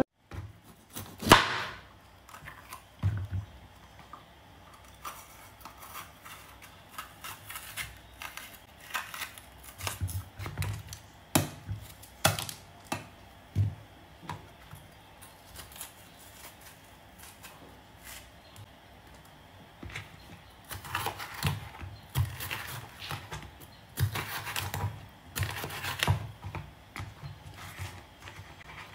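Knife cutting on a cutting board during vegetable prep: irregular taps and knocks, in scattered runs rather than a steady chopping rhythm, with small kitchen clatters between.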